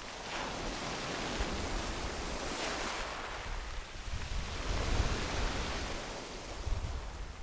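Sea waves breaking and washing up a pebble beach: a hiss of surf that swells twice and then eases off.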